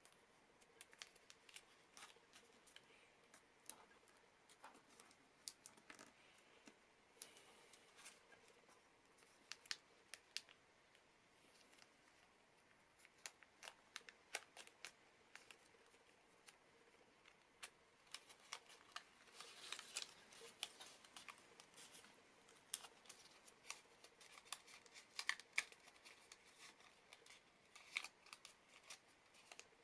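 Origami paper being folded and creased by hand: soft, scattered crisp paper crackles and ticks, with a denser stretch of rustling about two-thirds of the way through.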